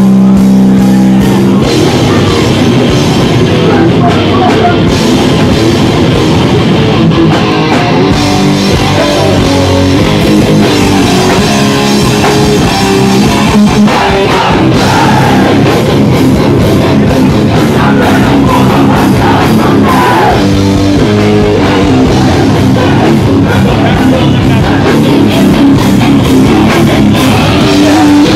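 A live band playing loud, heavy rock, with distorted guitars and a drum kit pounding without a break.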